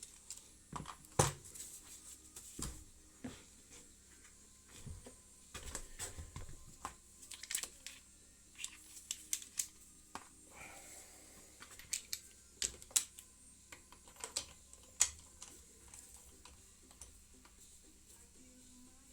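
Irregular light clicks and clinks of hand tools and small metal parts being handled, with the sharpest knock about a second in.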